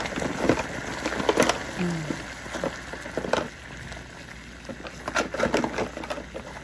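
Water at a rolling boil bubbling in a glass pot, with splashes and light metal clinks as fresh ravioli are dropped in and stirred with a slotted spoon.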